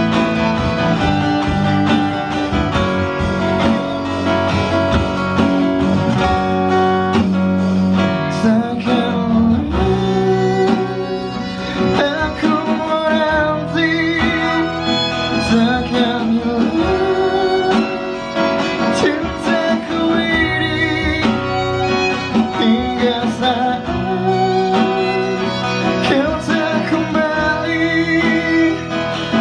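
Live acoustic band music: a violin playing a wavering melody over strummed acoustic guitar and electric bass guitar.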